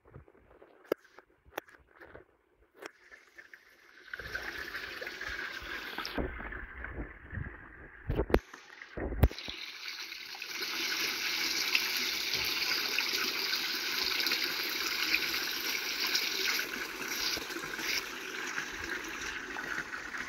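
Water from the pond filters pouring and splashing steadily into the pond, fuller and louder from about ten seconds in. A few sharp knocks come in the first half, two of them loud.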